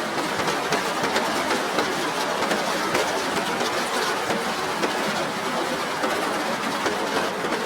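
Rain falling steadily against a window: a constant hiss of rain with many small, fast taps of drops hitting the glass.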